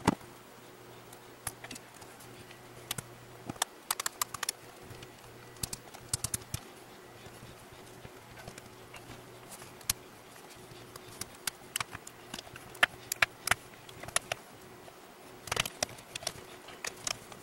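Irregular sharp clicks and snaps of the brittle plastic screen bezel on a Samsung NP305V5A laptop lid as its clips release while it is pried off by hand. A faint steady hum runs underneath.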